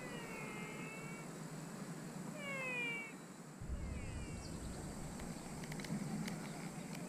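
Distant animal calling: three falling, whining calls, each under about a second, the first two the clearest. They are likened to a Formula 1 car going by. A few faint ticks follow in the second half.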